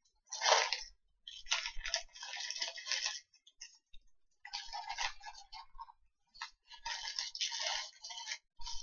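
A person eating a burger close to the microphone: irregular bursts of chewing and rustling noise in four clusters, each a second or two long, with short gaps between.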